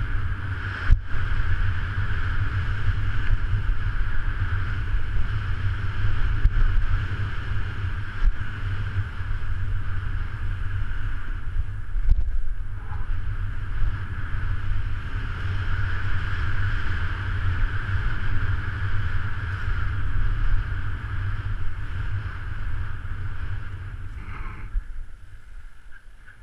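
Wind rush and a heavy low rumble on the microphone of a camera riding on a mountain bike as it rolls down a dirt trail, with an occasional sharp knock from a bump. It dies down near the end.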